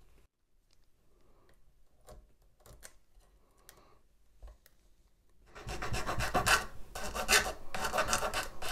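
A hand tool scraping and rubbing on the thin wooden planking of a model ship. There are only faint small clicks at first, then from about five and a half seconds in a loud, rapid rasping.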